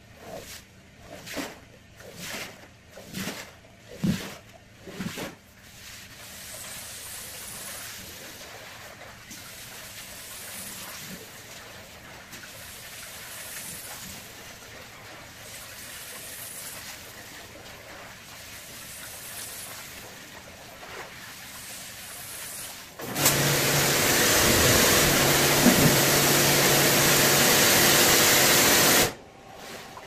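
Rug cleaning work sounds: about ten rhythmic strokes in the first five seconds, then a steady hiss. About 23 seconds in, a loud machine with a low motor hum starts suddenly, runs for about six seconds, then cuts off.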